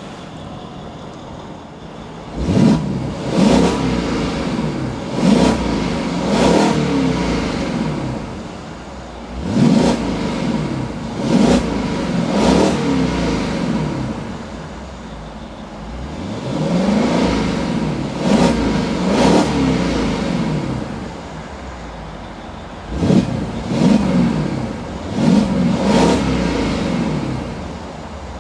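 Mercedes-Benz SLK55 AMG's 5.5-litre V8 idling and revved in short throttle blips, often two or three in quick succession, each climbing and falling back to idle, heard from the driver's seat with the dual-mode AMG sport exhaust in Standard mode.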